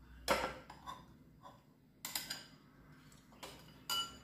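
A metal utensil clinking against glass dishes in several sharp clinks, the last one ringing briefly.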